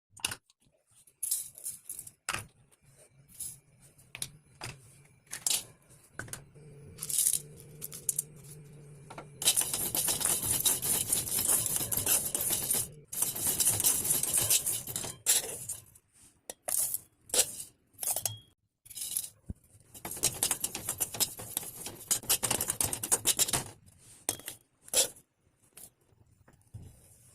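Clam shells clinking and rattling against one another and against a dish or pan in many sharp, irregular clicks. Several longer stretches of steady hiss run among the clinks.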